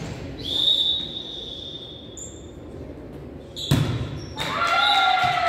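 Ball bouncing on the floor of a large hall, heard as scattered knocks. A steady high tone runs through the first half, a loud bang comes about two-thirds in, and then a drawn-out tone with several pitches slowly falls.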